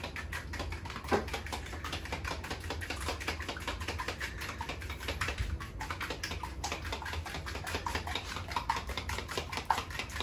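Eggs being whipped by hand in a bowl: the utensil clicks against the bowl in a rapid, steady rhythm, with one harder knock about a second in.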